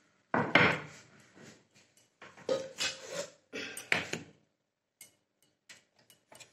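Knocks and clatter of a metal kadhai being handled, the loudest about a third of a second in and more between two and four seconds in, followed by a few faint clicks near the end.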